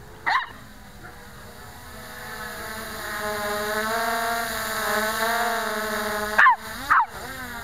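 MJX Bugs 3 quadcopter's brushless motors and propellers whining, growing louder as it flies in close overhead, the pitch wavering with throttle. A dog barks once near the start and twice near the end.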